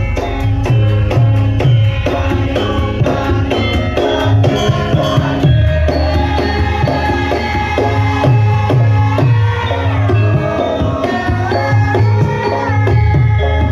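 Live Javanese gamelan music for a lengger mask dance: deep, pitch-bending hand-drum (kendang) strokes under a steady rhythm of struck metallophone notes, with a held, gliding melody line coming in during the second half.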